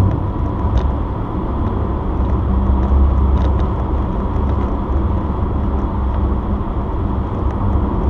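Steady road noise heard inside a car cabin while driving at highway speed: a continuous low rumble of tyres and engine.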